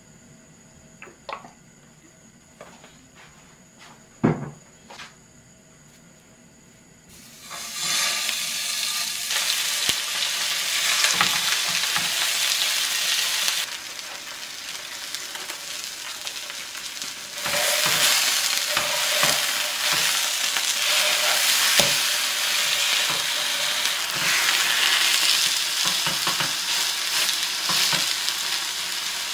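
Sole fillets (bakdae) sizzling in oil on a non-stick tray pan over a portable gas burner. After a few light taps and clicks, the sizzle starts about seven seconds in, drops lower for a few seconds in the middle while the fish is covered with parchment paper, then comes back loud, with occasional chopstick clicks.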